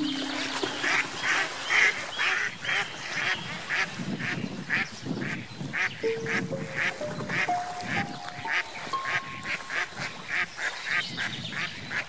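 Mallard ducks quacking over and over, a few short calls a second, with slow music notes climbing in pitch underneath.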